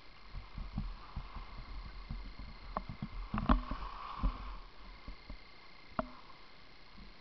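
Skis sliding over packed snow, heard through a skier-worn camera: a steady low rumble with irregular knocks and scrapes as the camera jolts, the loudest about three and a half and six seconds in.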